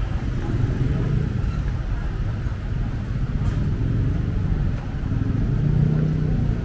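Street traffic with cars and motorcycles running and passing, and one engine passing louder and closer near the end.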